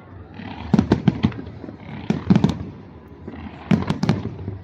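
Fireworks display with aerial shells bursting in three quick volleys of several sharp bangs each, about a second and a half apart, and a low rumble between the volleys.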